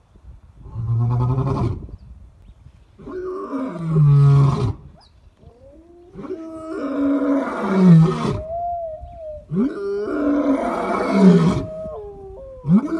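White lion roaring: a series of five deep, loud roars, each one to two seconds long, the later ones longer than the first.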